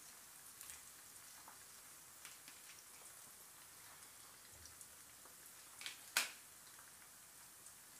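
Wontons frying in a shallow pan of oil: a faint steady sizzle with scattered small crackles and pops. About six seconds in there is a brief, louder burst of sizzling as another wonton goes into the oil.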